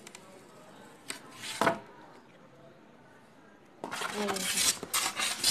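Polystyrene foam tray being handled and slid over a tiled floor: a brief scrape with a knock about one and a half seconds in, then near the end a couple of seconds of squeaky rubbing and rustling of the foam.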